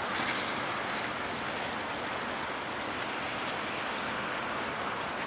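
Steady rushing outdoor background noise, with a couple of brief hissy flares in the first second.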